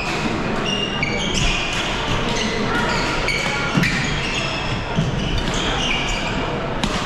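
Badminton doubles rally: shoes squeaking on the court floor again and again, with sharp pops of rackets striking the shuttlecock, over the chatter of a busy hall.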